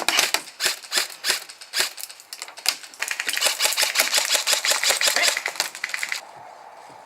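Airsoft guns firing: irregular single shots for about three seconds, then a fast, even stream of full-auto fire for about three seconds that cuts off suddenly.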